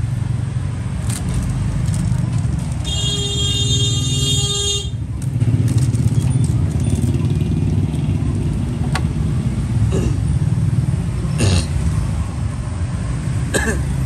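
Steady rumble of street traffic with motorbikes passing. A vehicle horn sounds once, held for about two seconds near the start. A few short clicks are heard later on.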